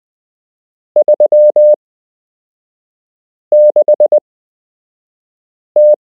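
Morse code numbers sent as a single mid-pitched beep tone, keyed in dots and dashes. There are two five-element characters, about a second in and about three and a half seconds in, and a third begins near the end.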